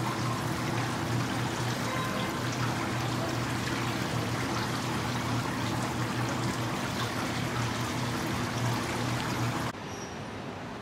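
Steady outdoor city background noise, an even hiss with a constant low machine hum under it. It drops to a quieter background near the end.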